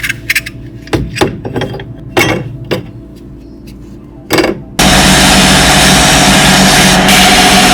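Small metal parts clinking and knocking together, about six sharp clinks over four seconds. Then, nearly five seconds in, a power tool's motor starts abruptly and runs loudly and steadily with a humming tone.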